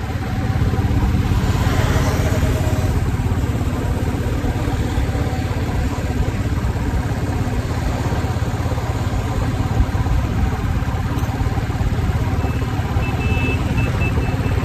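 Motorcycle engine running steadily under way, a low, even drone with wind and road noise over it. A few short, faint high beeps come in near the end.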